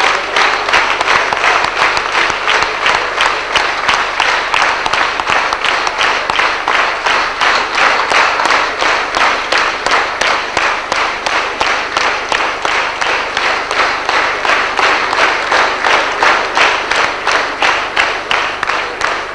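A large audience clapping together in a steady, even rhythm of claps.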